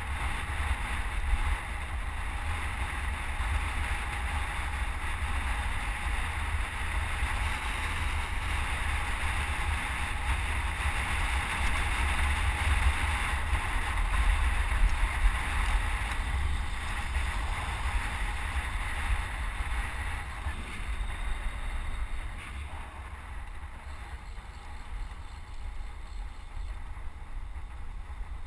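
Wind rushing and buffeting over a helmet-mounted GoPro HD Hero's microphone on a road bike moving at speed: a deep steady rumble under a broad rushing hiss, easing a little in the last third.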